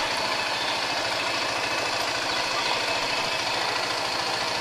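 K-Lion Santa 200 quad bike's engine idling steadily.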